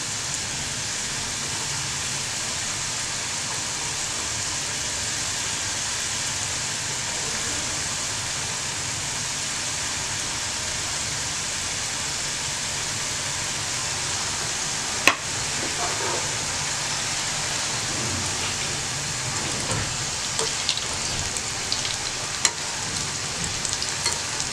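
Homemade tortilla chips deep-frying in oil in a steel pan: a steady bubbling sizzle. A single sharp click comes about fifteen seconds in, and a few light metal clicks near the end as a slotted spoon goes into the pan.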